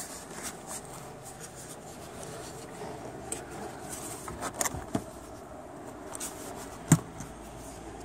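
Scattered small plastic clicks and rubbing as a wiring-harness plug is worked out of a Mercedes PSE central-locking pump by hand, its grey locking slide pressed and pulled. A few clicks come close together just before halfway, and one sharper click near the end.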